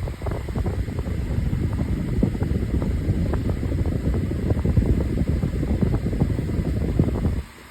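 12-inch table fan running on high speed: a steady rush of air with heavy wind buffeting on the microphone. On high the motor housing vibrates. The sound drops away briefly near the end.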